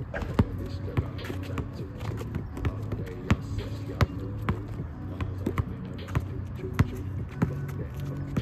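A basketball bouncing in sharp, uneven thumps, with music playing underneath.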